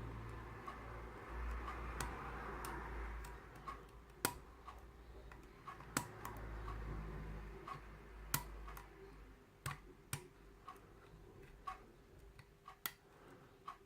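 Small, sharp metallic clicks at an irregular pace from a lock pick working the pins of a Yale euro cylinder being single-pin picked, over a faint low rumble of handling.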